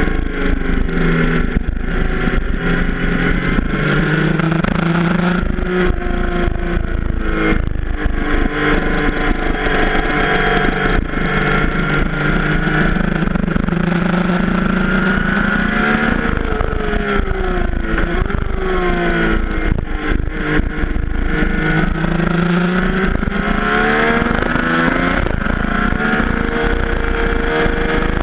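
Yamaha FJ-09's three-cylinder engine under hard riding, its pitch rising and falling several times as the bike accelerates out of corners and rolls off into them. Wind rushes and buffets the camera's microphone.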